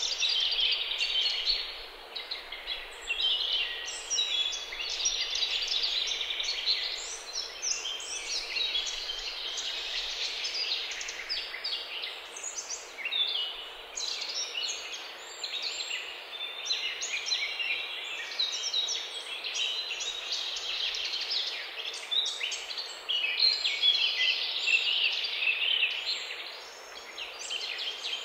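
Several birds singing at once, a continuous chorus of short, high chirps and trills that overlap throughout.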